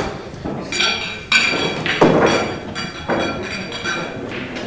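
Pool balls clacking during a shot: several sharp hits, the loudest about one and two seconds in, each with a short ringing after.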